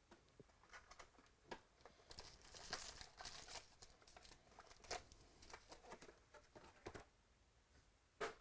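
Faint crinkling and tearing of a foil trading-card pack wrapper being opened, with light clicks and rustles of cards being handled and a sharper click near the end.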